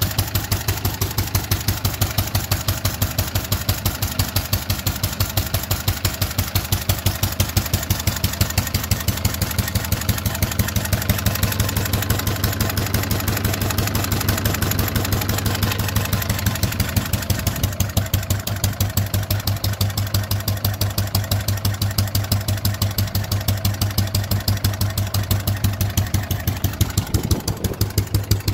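EVR 6 single-cylinder petrol stationary engine running steadily, with a fast, even exhaust beat through its upright silencer.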